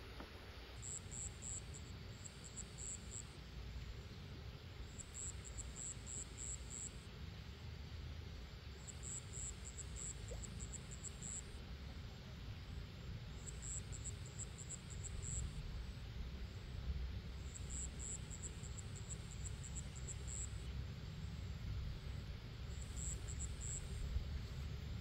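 Insects chirping in repeated short trains of rapid high-pitched pulses, over a steady low rumble.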